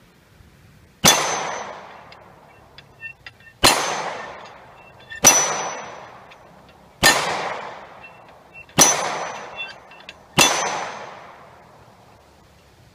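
Six .45 ACP pistol rounds striking hanging steel plate targets, each shot a sharp crack merged with a metallic clang that rings out and fades over about a second. The hits come about one and a half to two seconds apart.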